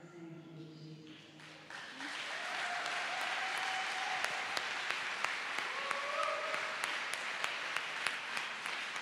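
Congregation applauding: the clapping builds in about two seconds in and keeps going steadily, with a few voices calling out over it. A held tone fades out at the start.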